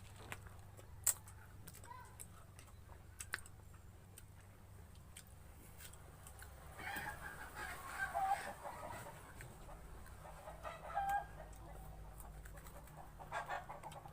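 Fowl clucking faintly in the background, a few short bursts of calls about halfway through and again near the end, over scattered faint clicks.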